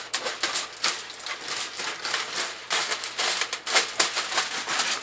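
Large scissors cutting through crumpled aluminum foil: a rapid, irregular run of crisp snips and crackles as the foil crinkles around the blades.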